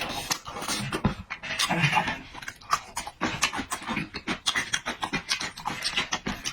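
Close-miked eating sounds: wet chewing, lip-smacking and breathing through the nose, a dense run of small irregular clicks and smacks.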